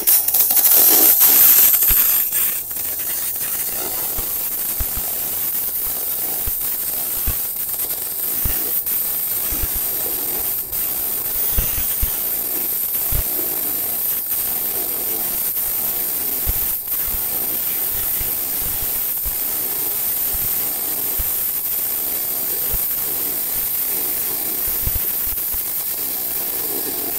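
MIG welding arc on aluminium, from a Tenya Smartmig 265 inverter welder with argon shielding gas: a steady crackling hiss that runs unbroken, louder for the first couple of seconds and then even.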